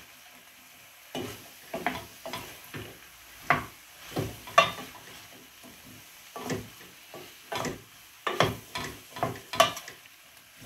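Wooden spoon stirring chopped fresh broad-bean pods in a stainless steel pot, with irregular scraping and knocking strokes against the pan, over a faint sizzle of the beans sautéing in oil.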